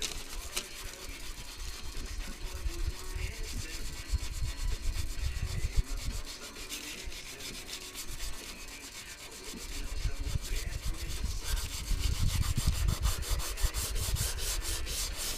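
Sanding on a car's rocker panel bodywork: repeated rapid abrasive rubbing strokes, heavier in the second half after a short lull midway.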